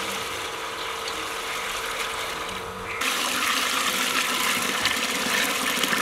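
Water poured from a steel bucket into a large metal pot, splashing into the water already in it. The sound gets louder and brighter about three seconds in.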